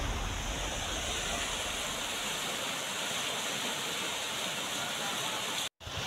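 Floodwater of a stream swollen by heavy rain, rushing fast and churning past a concrete edge: a steady rush of water. The sound drops out completely for a moment near the end.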